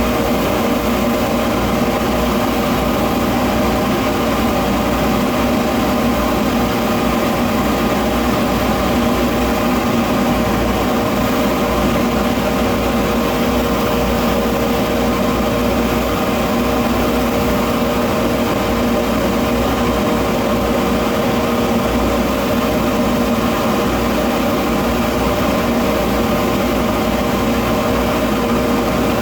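Electric polishing buffer motor running steadily, a constant hum of several held tones with no change in pitch or load.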